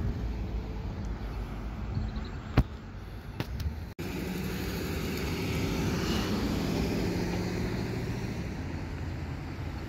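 Road traffic running through an intersection: vehicle engines and tyres, swelling as a vehicle passes about two-thirds of the way through, with a pickup truck approaching near the end. A few sharp clicks come a couple of seconds in, and the sound drops out for an instant about four seconds in.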